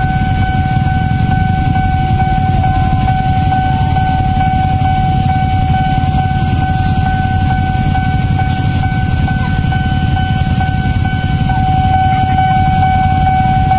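KRL electric commuter train passing over a level crossing with a steady low rumble, while the crossing's warning alarm sounds one unbroken high tone throughout.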